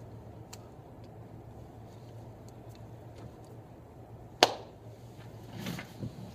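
Quiet room with a steady low electrical hum and a few faint clicks. About four seconds in comes a single sharp hand slap, the loudest sound, followed by a brief rustle and a soft thump near the end as a person shifts in a chair.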